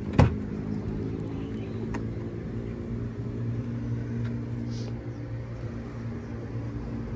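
Toyota Land Cruiser's 4.6-litre V8 idling with a steady low hum. There is one sharp thump just after the start.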